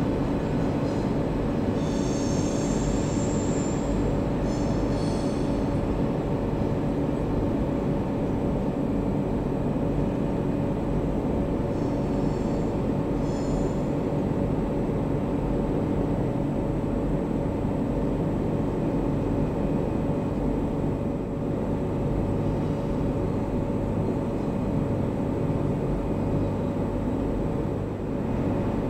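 Freight train of sliding-wall box wagons rolling slowly through station points and curves, with a steady rumble. The wheels squeal high on the curved track a few times in the first six seconds and again around halfway.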